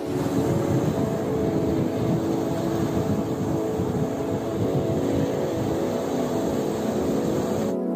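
Surf breaking and washing up a sand beach: a dense, steady rushing noise heavy in the low end, with faint music under it. It cuts off suddenly near the end.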